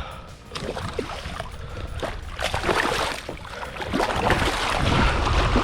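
Water sloshing and lapping around a fishing kayak, with small knocks and clicks from the hull and gear. A low rumble builds near the end.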